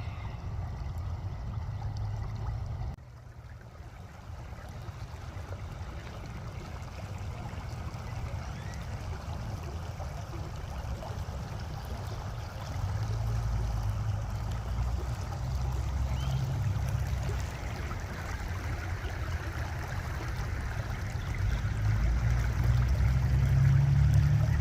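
Fast-flowing creek water rushing, a steady wash of noise with a heavy low rumble. It drops suddenly about three seconds in and grows louder toward the end.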